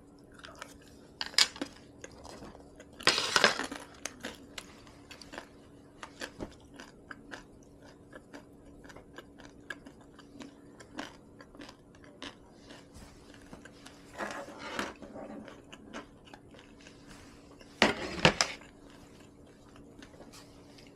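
Close-up chewing and mouth sounds of a person eating rice, soup and kimchi, with many small wet clicks and light crunching. Utensils clink against the dishes now and then, with louder noises about three seconds in, around fourteen seconds, and near eighteen seconds.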